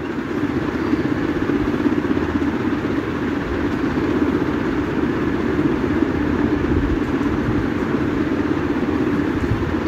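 Tomato and spice masala sizzling steadily in a karai on the stove burner while it is stir-fried.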